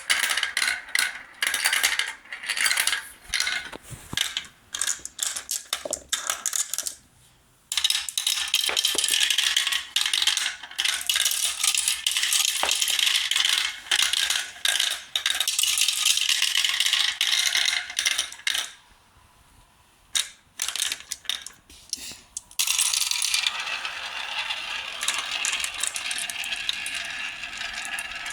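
Glass marbles rolling and clattering down a marble run track, a busy stream of small clicks and a rattling roll. It stops twice briefly and starts again.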